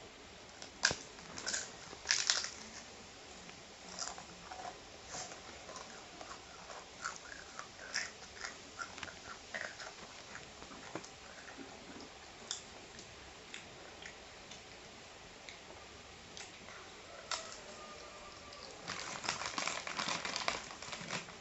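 Food being chewed and crunched, with scattered crisp bites and a denser run of crunching near the end.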